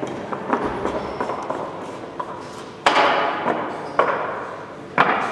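Hyoshigi, Japanese wooden clappers, struck three times about a second apart from about halfway through. Each sharp crack rings on in a large reverberant hall.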